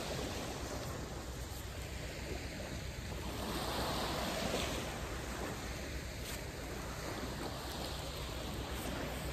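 Small waves washing onto a sandy beach, with wind on the microphone; the surf swells louder about four seconds in.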